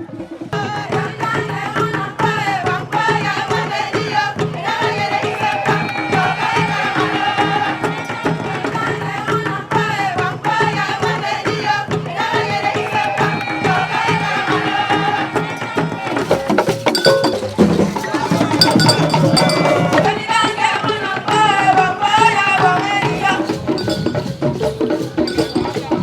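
Traditional folk music: singing over dense, rhythmic hand percussion, with a short stretch about two-thirds of the way through where the percussion carries on alone.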